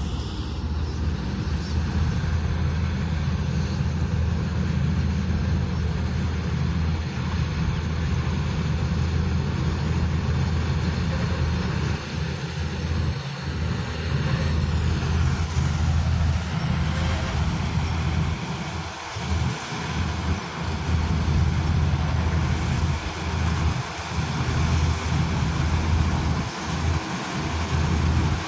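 Combine harvester running steadily at work in a rice field: a continuous low engine drone with the rattle and hiss of the machinery over it.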